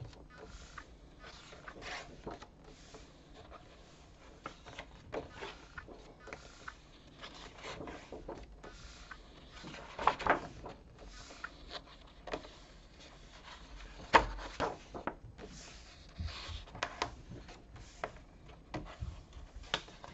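Pages of a paperback colouring book with thick, almost card-like paper being turned and pressed flat by hand: irregular paper rustles and soft flaps, loudest about ten and fourteen seconds in.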